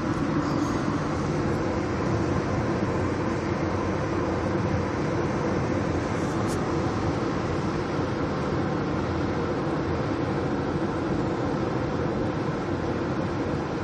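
Steady road and engine noise inside a moving car's cabin, an even rumble with no breaks.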